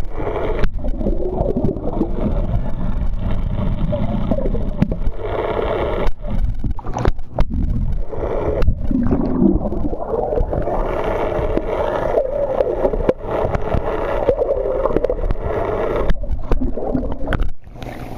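Underwater noise picked up by a camera in its housing: a steady low rumble and rush of water with a wavering drone, typical of boat machinery heard through the water. The sound cuts out briefly several times, and a burst of bubbling comes just before the middle.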